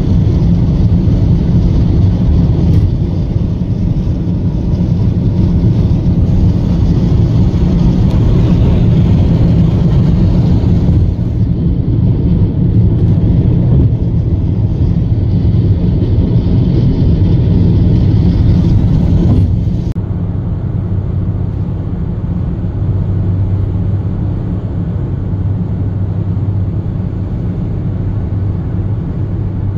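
Steady road and wind noise heard inside a car cruising on a highway, a low rumble with a hiss over it. About twenty seconds in, the sound drops in level and loses its top.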